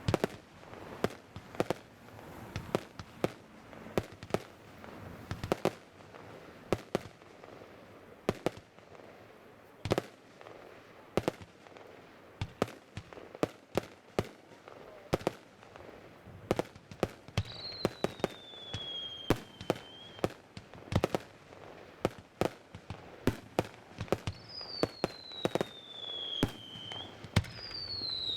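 Fireworks display: a steady string of sharp bangs and crackling reports, one to three a second, with whistling shells giving three falling whistles in the second half.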